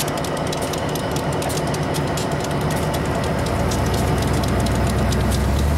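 Diesel-electric locomotives running: a steady low engine drone, with a deeper engine note growing louder from a little past halfway through.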